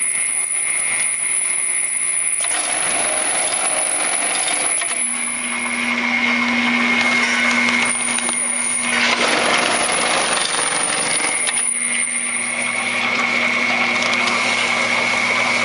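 DS9C industrial bag-closing sewing head on a powered end-feed conveyor, running as it trims the bag top, folds tape over it and stitches it closed: a steady mechanical running noise with a thin high whine. A low hum joins about five seconds in, and the sound grows louder for a couple of seconds about nine seconds in.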